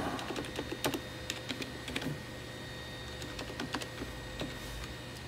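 Keystrokes on a computer keyboard: scattered, irregular key clicks as a short line of code is typed and corrected, over a steady low hum.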